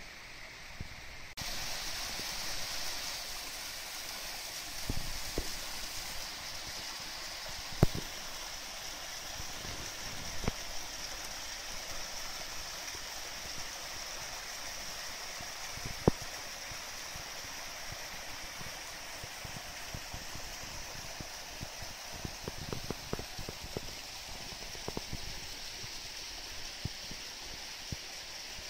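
Small rocky stream running and trickling over boulders, a steady rush of water that gets louder about a second and a half in. A few short sharp knocks stand out now and then, most of them in a cluster near the end.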